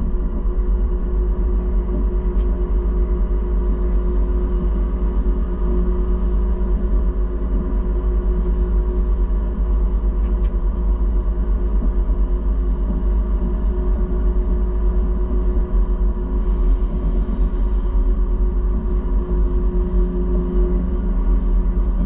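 Case IH combine harvester running steadily under load while harvesting soybeans, a constant deep rumble with a steady machine hum over it.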